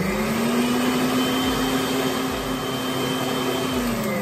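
Electric stand mixer's motor whirring steadily at medium-high speed as its balloon whisk beats egg and sugar sponge batter. The pitch holds level, then begins to wind down near the end.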